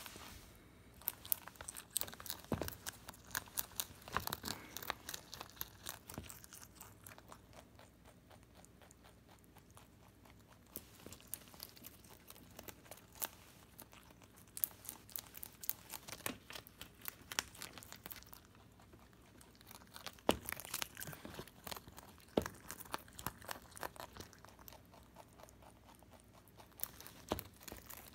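A Holland Lop rabbit eating a raw cabbage leaf: quick, crisp crunching bites and tearing of the leaf, in runs broken by a couple of quieter pauses.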